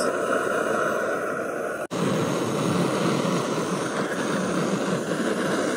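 BRS-3000T canister gas stove burning under a titanium pot of water, a steady rushing burner sound. The strong flame is the sign of a full gas canister. The sound cuts out for an instant about two seconds in.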